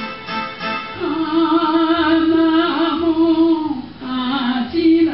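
Enka song sung over its backing accompaniment: about a second in, the voice takes up a long held note with vibrato, then steps down to shorter, lower notes near the end.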